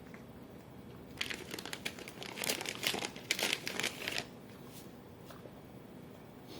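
Crinkling, crackling rustle made of many quick small strokes, lasting about three seconds and stopping abruptly.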